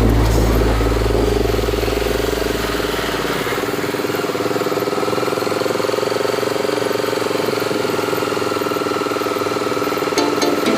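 Motorcycle engine running at a steady speed while riding, an even drone with no revving.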